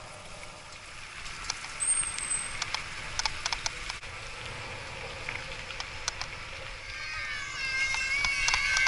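Bicycle riding on a rough dirt road: a steady rush of road and wind noise with frequent clicks and rattles from the bumps, and a brief high squeak about two seconds in. Near the end a high, held, pitched sound comes in over the ride noise.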